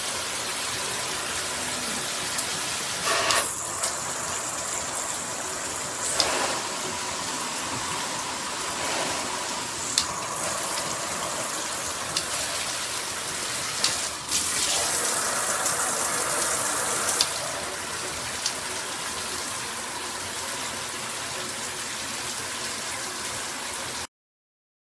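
Handheld shower head spraying water: a steady hiss with a few sharp clicks. The spray sound changes twice, then cuts off suddenly near the end.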